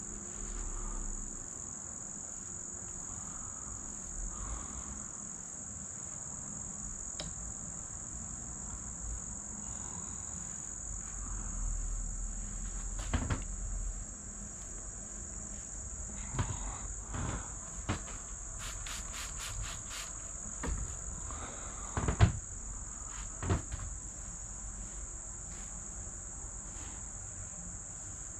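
A steady high-pitched drone of insects. Over it come scattered knocks and rubbing from hands and a cloth working over a deer shoulder mount, the loudest knock about 22 seconds in.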